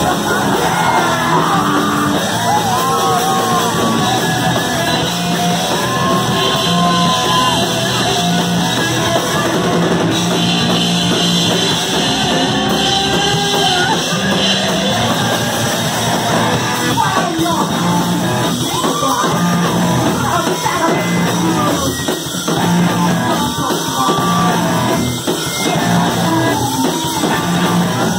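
A live punk rock band playing loud, with drums and bass guitar, and a singer shouting and singing over it in a hall.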